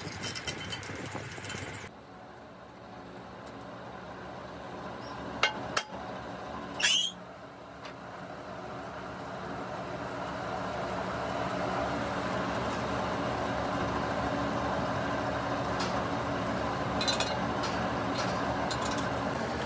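A workshop machine runs with a steady hum that grows louder over several seconds and then holds, with a few sharp metal clinks near the middle.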